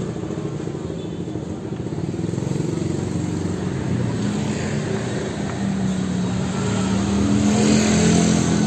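Motorbike and scooter engines running in street traffic close by, a steady engine hum; one engine grows louder in the last few seconds.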